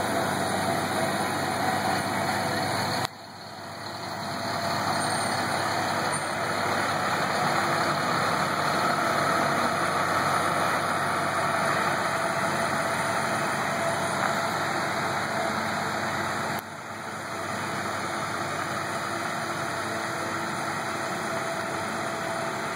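Engines of a slow heavy-haul truck convoy running steadily, with road noise. The sound drops abruptly about three seconds in and again past the middle, then builds back up.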